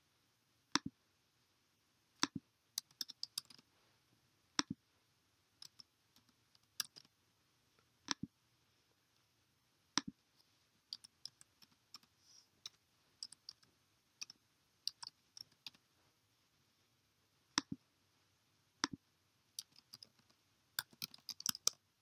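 Computer clicking and typing: single sharp clicks every second or two, with short quick runs of keystrokes on a computer keyboard in between and thickening near the end.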